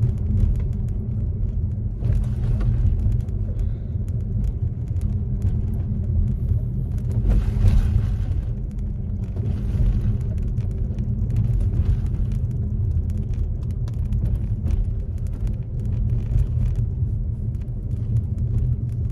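Car road noise heard from inside the cabin: a steady low rumble of engine and tyres, with light clicks and a couple of brief swells of hiss around the middle.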